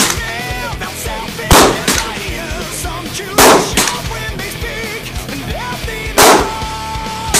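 Three rifle shots about two to three seconds apart, each a sharp crack with a short echo, over heavy metal music.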